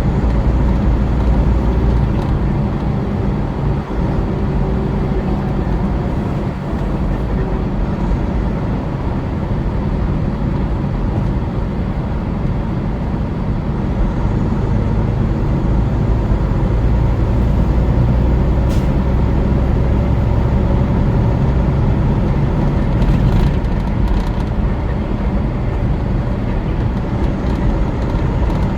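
Steady engine and road noise of a vehicle driving along the highway, a continuous low rumble.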